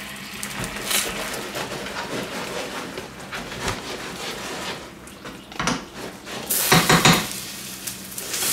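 Pieces of salt cod sizzling in oil and squid ink in a frying pan, with a spoon stirring and scraping against the pan. A louder clatter of spoon and pan comes near the end.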